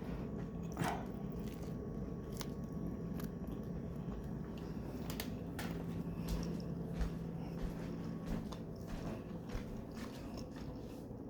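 A person biting and chewing a steak sandwich close to the microphone: scattered small crunches and clicks of the bread over a low steady hum.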